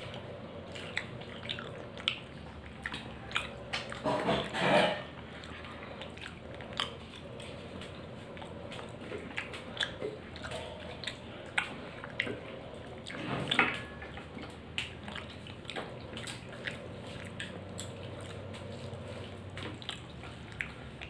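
A person eating rice and curry with their hand: chewing and lip smacking with many small wet mouth clicks, and two louder, longer noises about four seconds in and again past the middle.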